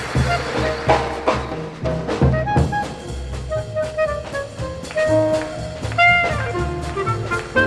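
Jazz band music with saxophone and brass over a steady beat of bass and drums.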